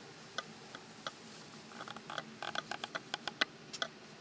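Irregular sharp clicks inside a moving car's cabin, a few at first and then a quick run of them about two to four seconds in, over the faint steady hum of the car driving.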